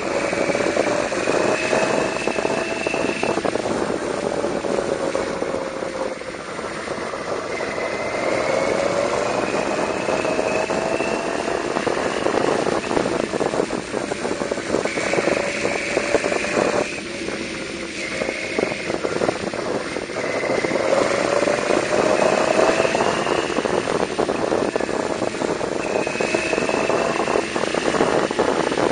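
Yamaha V-Max 1200's V4 engine running on the move, its pitch climbing over a few seconds and dropping back again several times as the throttle is opened and eased through the bends, over a steady rush of wind and road noise.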